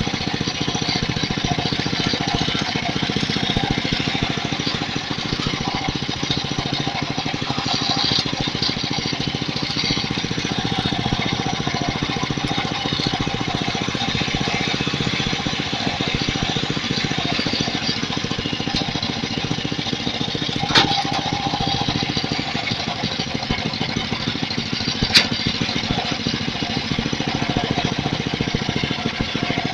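Small engine on a homemade scrap-built tractor running steadily at idle, with a rapid, even knocking beat as it turns its V-belt pulley. Two sharp metallic clicks stand out, one about two-thirds of the way in and another a few seconds later.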